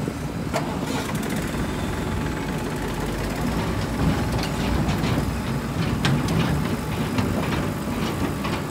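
JCB backhoe loader's diesel engine running steadily under load while the backhoe arm digs, with a few sharp clanks from the arm and bucket.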